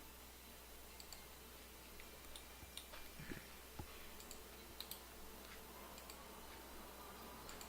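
Faint computer mouse clicks, scattered irregularly and sometimes in quick pairs, over a low steady hum.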